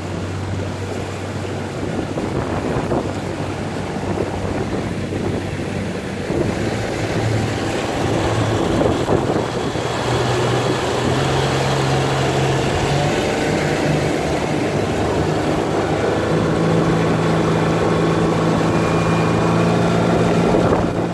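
Rigid inflatable boat's engine running under way, its tone stepping up in pitch twice as the boat picks up speed, with water rushing from the wake and wind on the microphone.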